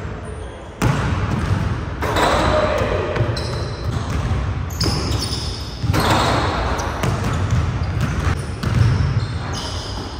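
A basketball bouncing on a hardwood gym floor, with people's voices in the background. The background sound shifts abruptly several times.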